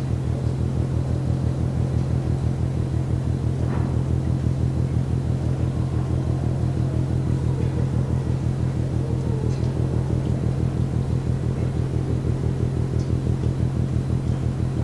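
Low, rapid, steady rhythmic pounding from the container ship MAERSK TAIKUNG, a deep throbbing banging that keeps up without a break.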